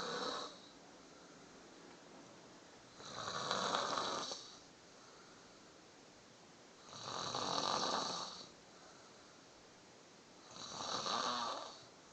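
A sleeping woman snoring: three long snores about four seconds apart, with the tail of another right at the start.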